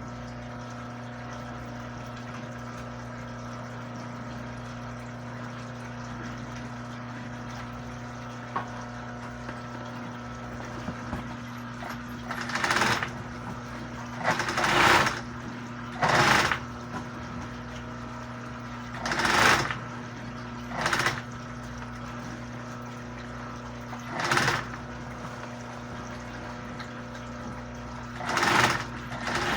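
Sewing machine motor humming steadily, with about seven short bursts of stitching in the second half, each lasting under a second, as a bag is sewn in a repair.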